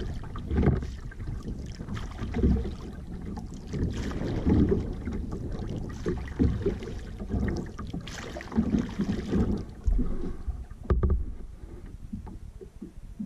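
Kayak paddle strokes: the double-bladed paddle dipping and pulling through the water about every two seconds, each stroke a low splashing surge over a steady low rumble. The strokes stop a couple of seconds before the end as the paddling pauses.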